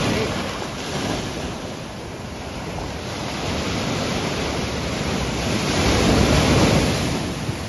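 Ocean surf breaking and washing on the shore, with wind buffeting the microphone; the rush swells at the start and again, loudest, about six seconds in.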